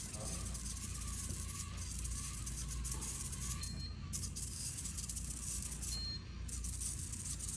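Roomba robot vacuum running, its motor hum steady under a rattling hiss from the brushes and suction, with the hiss dropping out briefly a few times.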